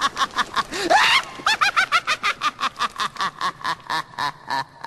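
A long bout of cackling laughter: rapid, rhythmic 'ha-ha' pulses at about five a second, with a high rising squeal about a second in, slowing toward the end.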